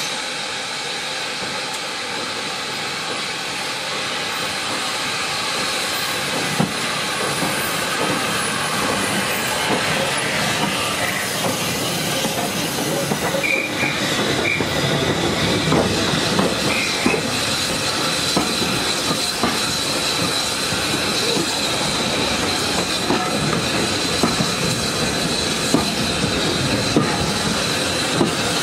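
SR U Class 2-6-0 steam locomotive No. 1638 passing close by on the adjacent track with steam hissing, then its coaches rolling past. The wheels knock over the rail joints, and from about halfway a steady high squeal comes from the wheels.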